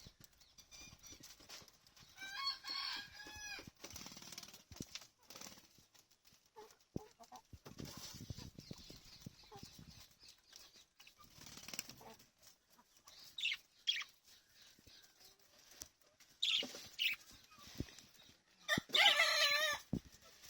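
Birds calling: a wavering call about two seconds in, a few sharp short calls past the middle, and a longer, louder wavering call near the end, with scattered clicks and scratching in between.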